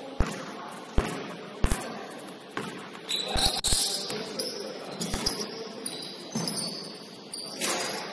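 A basketball bouncing on a court floor during play: a series of irregular thuds, some in quick pairs.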